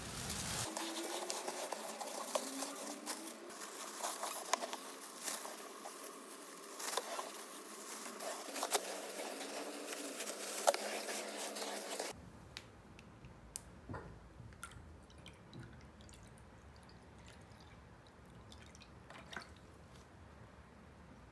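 Cat litter granules rustling and pattering as a gloved hand scoops and sifts them in a litter box, with many small crackling clicks. A bit past halfway it cuts off suddenly to a much quieter room with only a few faint clicks.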